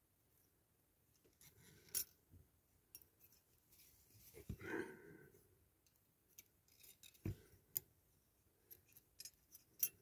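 Faint clicks and light scrapes of small diecast toy parts being handled and pushed into place by hand. There is a sharp click about two seconds in and a run of small clicks near the end.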